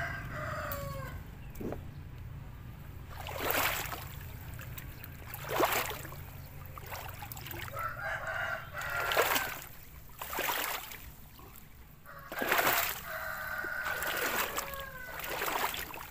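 Water sloshing in short bursts, roughly one every two seconds, as someone wades through a flooded field. A rooster crows several times, at the start, about eight seconds in and again from about twelve seconds in.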